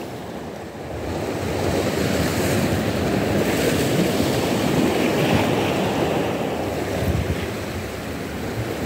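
Waves of a rough sea washing on the shore, with wind on the microphone: a steady rush of noise that swells about a second in and eases slightly near the end.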